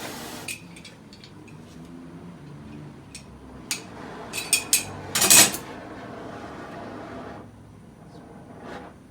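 Metal tools clinking and knocking against a seized metal fitting: a few sharp clinks about three to five seconds in, then one louder knock. A steady hiss underneath stops about seven seconds in.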